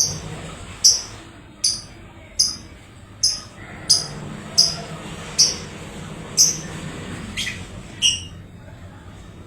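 Parblue lovebird giving a series of short, sharp, high-pitched chirps, about one every second, eleven in all, with one longer sweeping call near the end.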